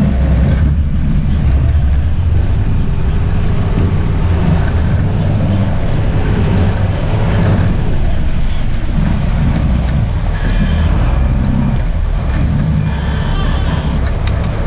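Sportfishing boat's engines running, mixed with wind on the microphone and water churning at the stern: a loud, steady low rumble.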